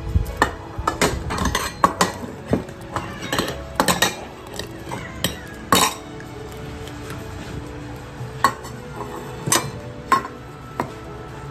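Food dishes clinking and knocking as several cats eat from them, a quick run of clinks for the first half, then fewer and more spaced.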